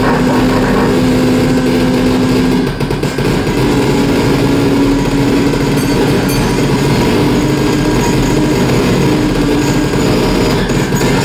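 Experimental noise music: a harsh, dense, distorted drone of saxophone sound run through live electronics, loud and unbroken. A held low note stops about two and a half seconds in, and a slightly higher held tone carries on after it.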